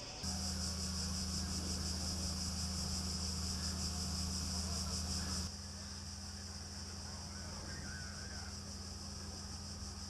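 Cicadas buzzing in a steady, finely pulsing high chorus over a steady low hum. Both drop abruptly to a softer level about halfway through and carry on.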